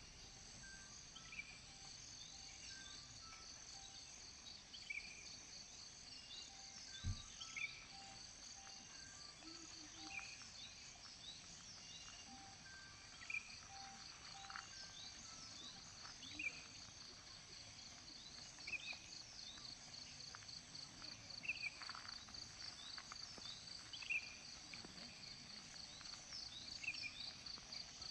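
Insects trilling in a steady, rapidly pulsing chorus, with other short high chirps repeating every second or two. There is a single low thump about seven seconds in.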